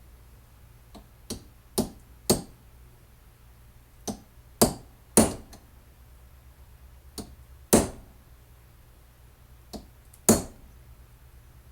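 Hammer blows peening over the end of a metal pin in a belt repair: sharp metal strikes in short groups of two to four, about half a second apart, each group building to a louder last blow, with a brief ring after the heavier hits.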